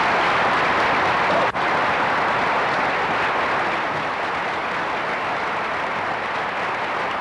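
An audience applauding steadily after a speech, easing a little after about four seconds, with a momentary break about a second and a half in.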